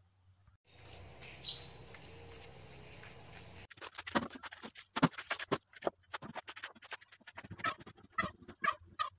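A plastic bag crinkling and rattling as it is opened and handled, with sharp crackles and clicks. Near the end, several short clucking calls from chickens.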